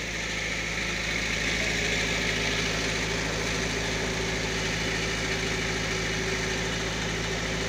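Generator set engine running at a steady speed, a constant low hum with a hiss over it, supplying the power for the sound system.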